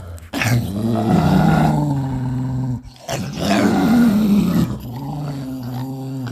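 A dog growling: two long, low growls with a short break about three seconds in.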